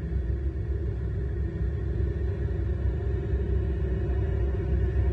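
Road traffic: a steady low rumble with a faint engine hum.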